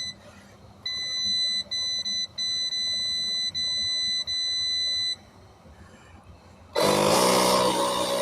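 Handheld air compressor beeping as it is set: a run of high electronic beeps of uneven length. About seven seconds in, its motor starts suddenly and runs steadily and loudly with a low buzz, beginning to inflate a tire.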